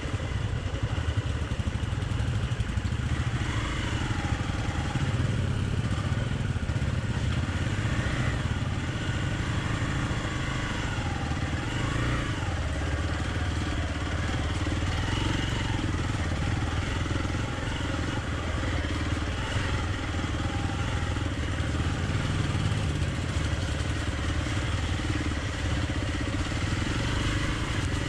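Hero XPulse 200 single-cylinder motorcycle engine running steadily while ridden, its note rising and falling a little with the throttle.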